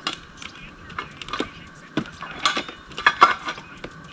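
Plates and camp cooking gear clinking and knocking as they are handled and set down on a picnic table: a string of short, sharp knocks and clinks, loudest about three seconds in.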